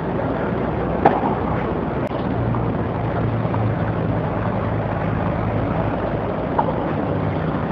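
Steady rumbling background noise, such as wind on the microphone or distant traffic, with three short knocks of a tennis ball struck by racquets: about a second in, about two seconds in, and near the end.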